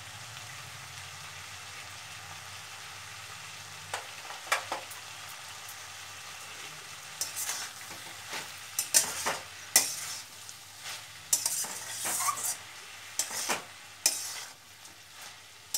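Flat spatula stirring vegetables in a stainless steel kadai over a low sizzle of frying. Two light taps come about four seconds in, then from about halfway repeated scraping strokes of the spatula against the steel pan.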